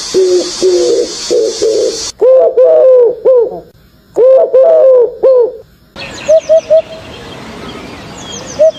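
Bird calls from three different recordings played in turn, changing abruptly about two seconds in and again about six seconds in. First come repeated low calls over a high hiss, then two runs of four or five low hooked notes, then short notes in groups of three with faint high chirps.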